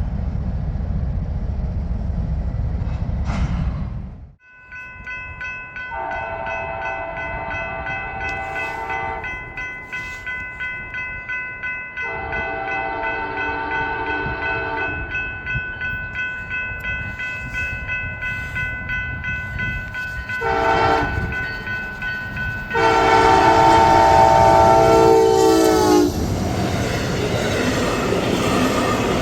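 Locomotive horn sounding the grade-crossing signal, two long blasts, a short one and a final long one, over rhythmic rail-joint clatter from the approaching train. The first few seconds hold a low train rumble that cuts off abruptly about four seconds in.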